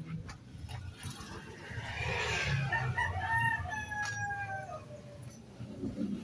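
A rooster crowing once: one long call of about two seconds that drops in pitch at its end.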